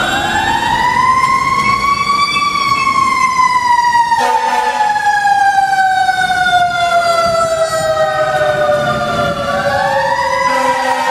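Emergency-vehicle siren winding up quickly to a high pitch, then slowly falling away for several seconds, and winding up again near the end, in the rise-and-coast pattern of a mechanical siren.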